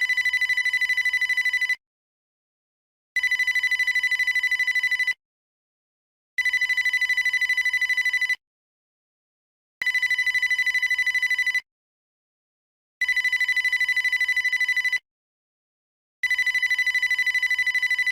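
Old-style digital telephone ring: a high electronic tone trilling rapidly, sounding in bursts of about two seconds with silent pauses of about a second and a half between them, six rings in a row.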